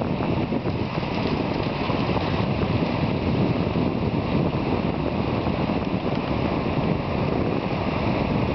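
Wind blowing on the microphone, a steady low rush, over small waves washing into the shallows.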